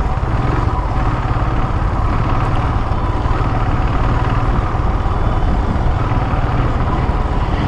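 Royal Enfield motorcycle running steadily on the move, a continuous low engine rumble with road noise and no change in pace.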